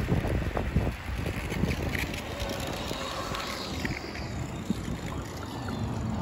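Wind noise on the microphone and the rumble of electric skateboard wheels rolling on asphalt at slow speed. The noise eases after about a second into a quieter, steady rush.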